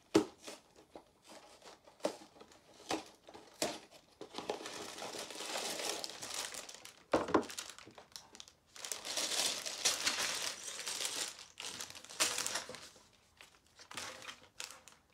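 Sealed plastic bags of LEGO bricks crinkling as they are handled and laid out on a table, along with the cardboard set box being opened. Scattered knocks and taps come throughout, and there are two longer stretches of crinkling through the middle.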